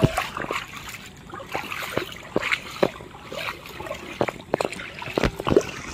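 Footsteps wading through shallow rain floodwater, irregular splashes and sloshes with each step.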